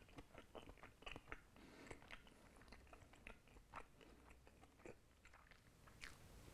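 Faint chewing of a mouthful of meatloaf: a scatter of small, quiet mouth clicks.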